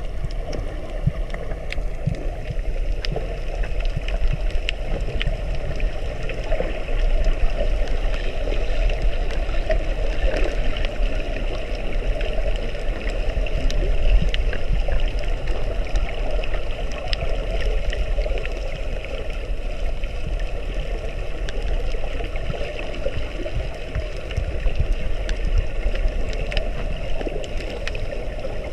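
Underwater ambience picked up by a camera in its housing: a steady low rumble and hiss with many scattered crackling clicks.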